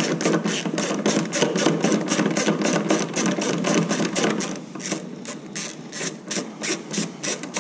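3/8-drive ratchet with a 10 mm socket clicking rapidly as it backs out a tail-light housing bolt, about five or six clicks a second, thinning out and spacing further apart in the second half.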